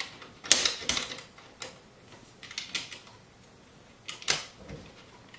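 Sharp metallic clicks and clacks of an M1 Garand's steel operating rod and recoil spring being worked into the receiver during reassembly. There are several separate clicks, the loudest about half a second in and another strong one near the end.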